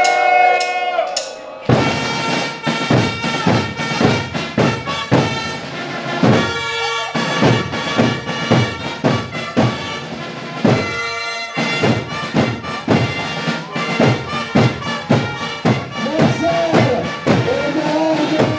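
A wind-instrument tune played by a historical-pageant band over a steady drumbeat. A held note opens it, and the drums come in about two seconds in. Voices rise over the music near the end.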